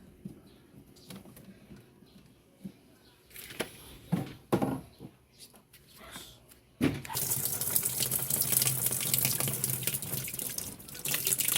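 Water rushing steadily into a twin-tub washing machine's tub, starting suddenly about seven seconds in after a few handling knocks. The tub is being filled to test a freshly replaced rubber drain-valve stopper for leaks.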